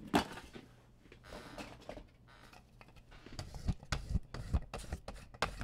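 Handling sounds on a table: a brief rustle about a second and a half in, then several soft knocks and taps in the second half.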